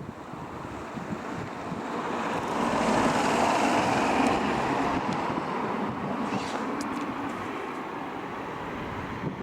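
A road vehicle passing by: a rush of engine and tyre noise that swells, is loudest about three to four seconds in, then fades away.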